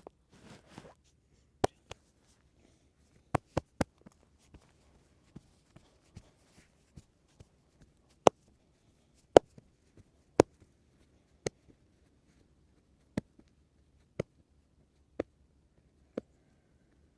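Sharp, separate snaps and slaps of hands working in a head and back massage, some faint. The loudest come in the middle, then four fall evenly about a second apart near the end. A brief rustle of hands comes at the start.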